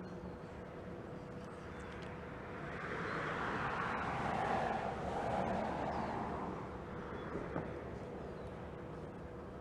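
A vehicle passing on a road: the noise swells over a couple of seconds, dips lower in pitch as it goes by, and fades, over a steady low hum of outdoor traffic.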